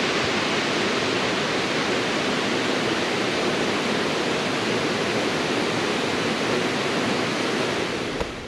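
Waterfall: a loud, steady rush of falling water that cuts off suddenly near the end.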